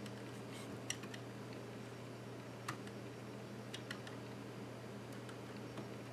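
A handful of small, sharp clicks and taps at irregular moments, from plastic and metal laptop parts and a small tool being handled while the machine is taken apart, over a steady low hum.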